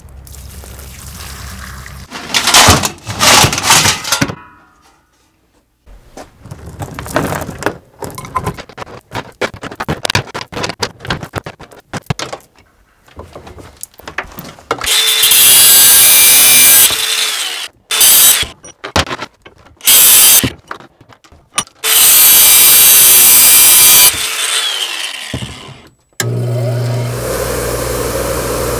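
A few loud clatters, then a run of lighter clicks and knocks, then a power tool grinding metal in loud bursts of one to two seconds. Near the end a bench grinder runs with a steady hum.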